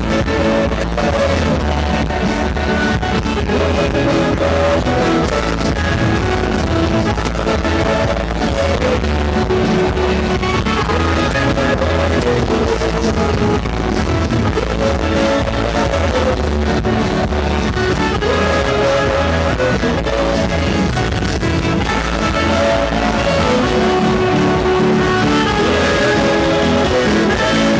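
Palo de Mayo (Maypole) dance music with guitar, playing loudly and without a break.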